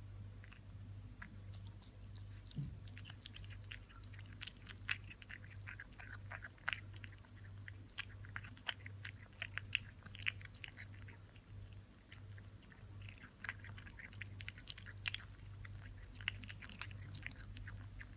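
A pixie-bob kitten chewing raw minced meat, with irregular clicks of its jaws and tongue that come several a second after the first couple of seconds.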